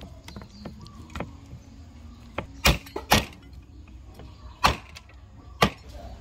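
Several sharp knocks, four loud ones at uneven intervals in the middle stretch, with lighter clicks between them.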